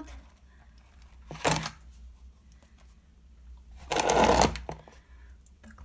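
Two bursts of rustling handling noise: a short one about a second and a half in, and a longer, louder one about four seconds in, with quiet between.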